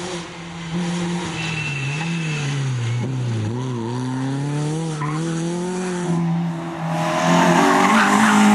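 Rally car engines driven hard on a stage. A Renault Clio's engine pitch falls as it slows for a bend about three seconds in, then climbs again as it accelerates away. Near the end a second car, a Citroën Saxo, comes past, louder.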